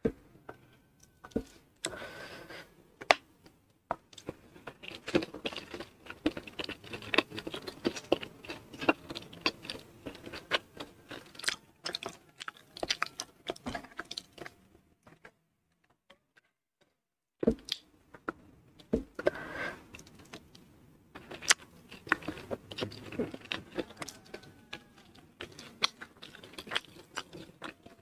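Close-miked chewing of a mouthful of rice with fried anchovies and peanut tempeh: wet mouth clicks and smacks with crisp crunches. It breaks off for about two seconds of silence a little past the middle, then starts again.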